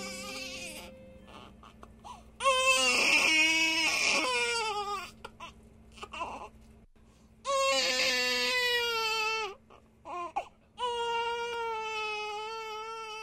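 A baby crying: three long cries a second or two apart, each a few seconds long and falling in pitch at its end.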